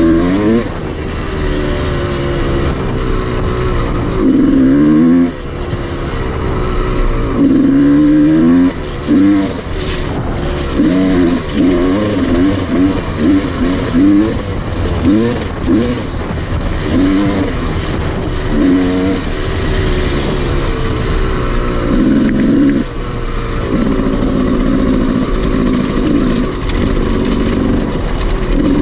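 Dirt bike engine being ridden hard, its pitch rising and falling again and again as the throttle is opened and closed.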